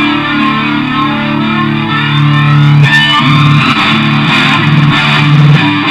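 Instrumental passage of a progressive rock song, led by guitars over bass. About three seconds in, the held chords give way to a busier, choppier part.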